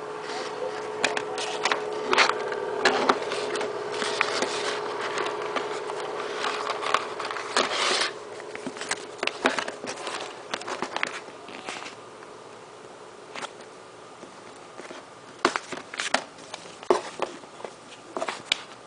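Unboxing handling noise: scattered clicks and crinkles of packaging being opened and handled, busiest in the first half and sparser later, over a faint steady hum that fades out partway through.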